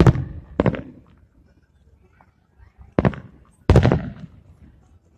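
Aerial firework shells bursting: four bangs, a pair right at the start and another pair about three seconds in, each trailing off in a short rumble.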